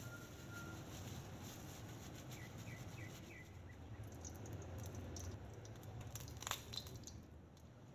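Faint room tone with a steady low hum, a short run of quiet chirps around the middle, and one sharp click about six and a half seconds in.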